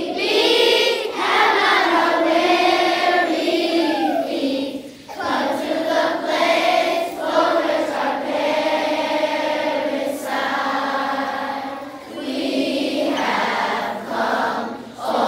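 A large group of elementary-school children singing together as a choir, in long held phrases with two short breaks between them.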